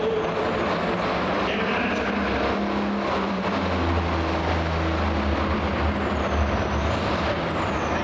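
Turbocharged diesel engine of a Ford hot farm pulling tractor running. A high turbo whistle climbs over the first few seconds, holds, then falls away and rises briefly once more near the end. A deep engine rumble swells in the middle.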